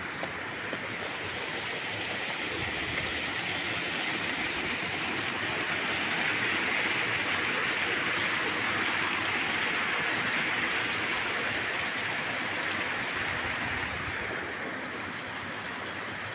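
Water rushing steadily through concrete trout-farm raceways, a little louder in the middle.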